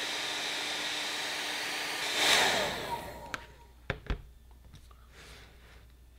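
Hand-held hair dryer blowing steadily with a motor hum, then a brief louder rush about two seconds in as it is switched off and its motor whines down in pitch. A few light knocks follow as it is set down on the wooden table.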